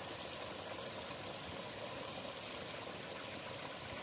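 Shallow stream water trickling and running steadily over rocks into a pool.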